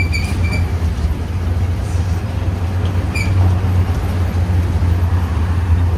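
Shuttle bus running, heard from inside: a steady low engine and road rumble with a hiss over it. A few short high-pitched tones sound right at the start and once more about three seconds in.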